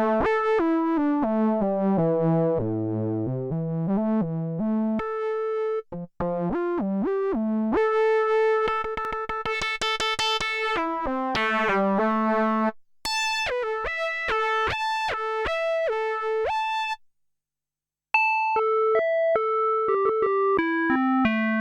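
Kurzweil K2000 synthesizer factory programs played dry, with no effects: quick runs of short keyboard notes going up and down, and a fast run of repeated notes in the middle. The playing breaks off briefly about six and thirteen seconds in, and stops for about a second near the end before starting again.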